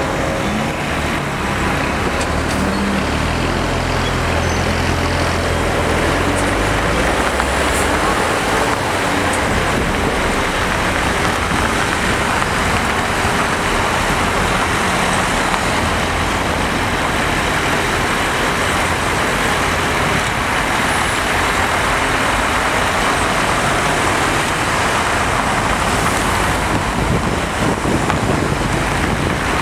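Diesel engine of a crane truck running to drive its hydraulic loader crane during a lift. Its low tone shifts up and down in steps over the first several seconds, over steady road-traffic noise.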